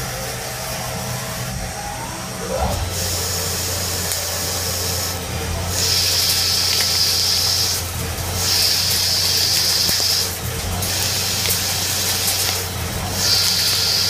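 CNC lathe turning a metal shaft: a whine rises in pitch over the first couple of seconds, then the machine runs with a steady hum. A high hiss comes and goes in stretches of about two seconds, five times.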